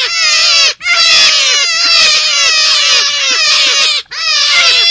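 Forest rabbit call: a dense, rapid run of short, high, squeaky notes, each falling in pitch, several a second. It breaks off briefly about a second in and again near the end.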